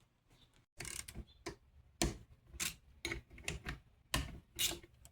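Irregular metallic clicks and light knocks, about two to three a second, from piston and connecting rod parts being handled and fitted together during piston assembly for a 6.0 LS V8. They begin after a short silence.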